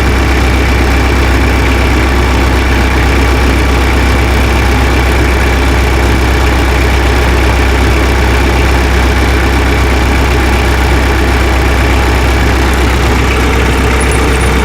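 Tractor engine idling steadily with a deep, even hum.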